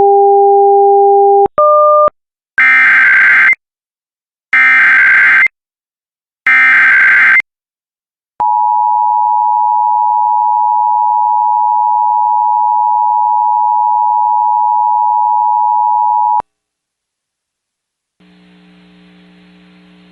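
Emergency Alert System activation: a couple of short tone beeps, then three one-second bursts of the screeching digital SAME header data, then a single steady attention tone held for about eight seconds. A faint hum comes in near the end.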